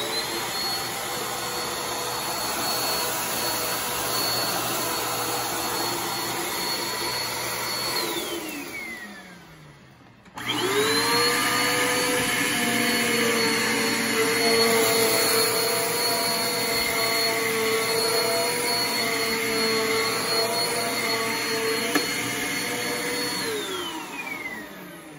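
Two bagless upright vacuum cleaners, a Eureka Airspeed and a Bissell PowerForce Helix, switched on one after the other. The first runs about eight seconds with a steady high whine, then winds down with falling pitch. A moment later the second starts, louder, runs about thirteen seconds and winds down near the end.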